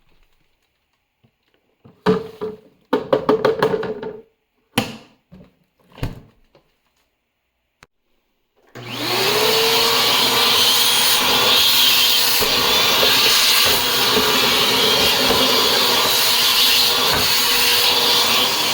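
Several sharp knocks a couple of seconds in, then a vacuum cleaner's motor starts about nine seconds in, its whine rising quickly to a steady pitch, and runs loud and steady under a hiss of rushing air, used to clean out a dust filter.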